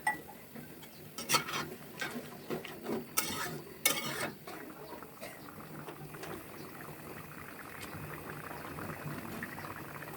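A metal spatula scraping and knocking against a cooking pan as a fish curry is stirred, several strokes in the first half. After that a steady bubbling simmer of the curry.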